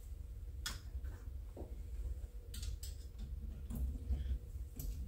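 Faint, irregular light clicks and taps of a small screwdriver and screw being handled against a Ford 7.3L Godzilla VCT cam phaser clamped in a bench vise, over a low steady hum.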